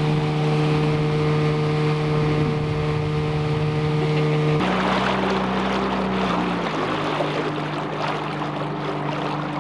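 Small outboard motor on a dinghy running steadily under way. About halfway through its note shifts abruptly higher, and a louder hiss of water and wind comes in.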